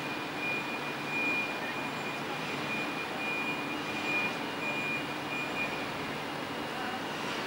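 Steady mechanical hum of urban background noise, with a faint high whine that comes and goes and drops away about six seconds in.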